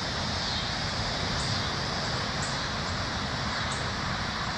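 Steady outdoor background of distant rush-hour road traffic under a constant high drone of singing cicadas.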